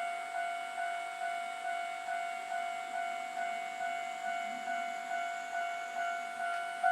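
Japanese railway level-crossing warning bell ringing: a repeating electronic ding at one steady pitch, about two and a half strikes a second.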